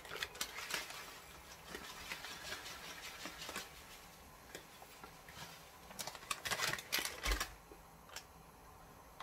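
Faint kitchen handling noise while cooking: irregular light clicks and taps, busiest about six to seven seconds in, with a single low thud just after.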